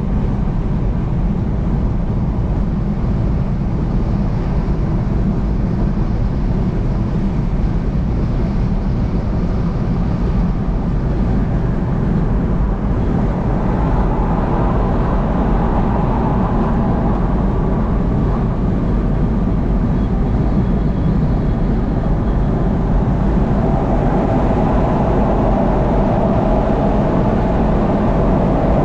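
Car driving at highway speed: a steady rumble of tyre, wind and engine noise.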